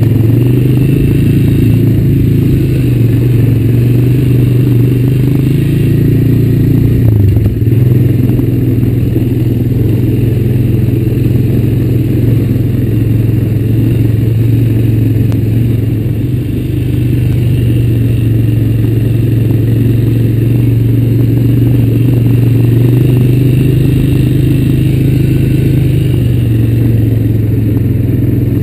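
2004 Honda Recon 250 ATV's single-cylinder four-stroke engine running steadily while riding a dirt trail. The engine note rises and then drops back about seven seconds in.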